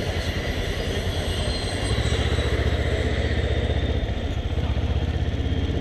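Kawasaki ER-6n's parallel-twin engine running at low revs while the motorcycle is ridden slowly. The engine gets a little louder about two seconds in.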